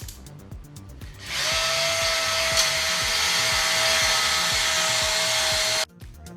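Power drill spinning a cylinder hone in a bore of a 1972 Dodge 360 LA engine block. It starts about a second in, runs as a steady motor whine over a rushing scrape, and stops abruptly near the end. Background music plays throughout.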